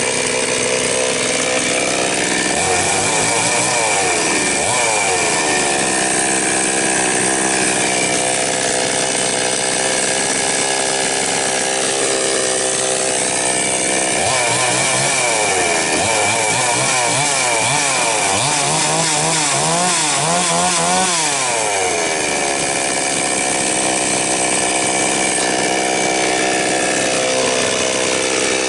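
Chinese 5200 two-stroke chainsaw idling. It is revved up and back down once about three seconds in, then given a run of repeated throttle blips from about fourteen to twenty-two seconds in before settling back to idle.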